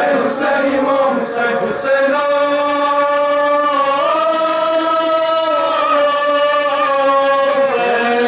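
Men's voices chanting a Muharram lament for Imam Hussain, the chant stretched into long held notes from about two seconds in.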